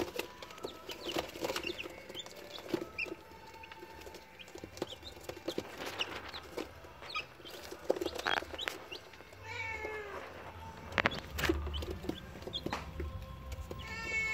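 Rhode Island Red chicks peeping: many short high chirps, with a few longer calls that fall in pitch, twice, about nine and a half seconds in and near the end. Scattered light taps sound among the peeps.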